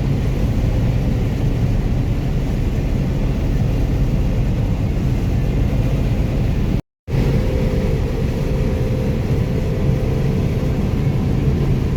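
Combine harvester running steadily while harvesting soybeans: a constant engine and machinery hum with a steady low drone. The sound cuts out for an instant about seven seconds in.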